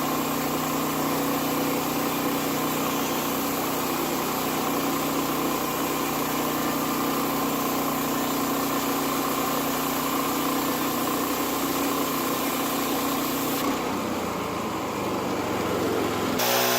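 Gas engine of a Woodland Mills bandsaw mill running steadily. Near the end the sound shifts, and the engine then revs up.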